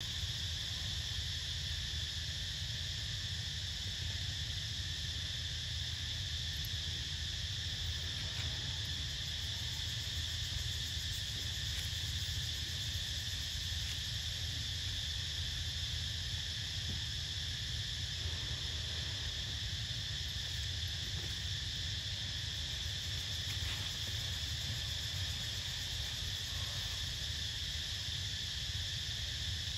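Steady chorus of insects in the forest, a constant high-pitched drone that never lets up, over a low steady rumble.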